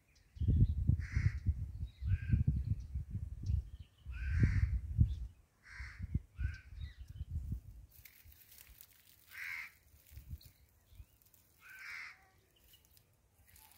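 Crows cawing: short, harsh calls repeated about once a second, spacing out in the second half. Wind rumbles on the microphone for the first five seconds or so.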